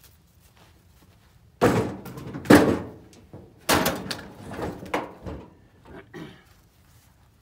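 Split firewood being handled off to one side: several loud wooden thunks and clatters about a second apart, as pieces are dropped onto other wood. The last knocks are fainter.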